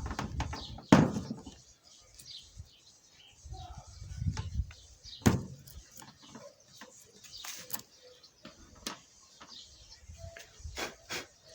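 Irregular knocks and clicks, with sharper impacts about a second in and about five seconds in.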